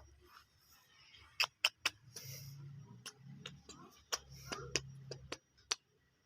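Irregular sharp clicks and taps, about a dozen spread over several seconds, from cats playing with a sandal.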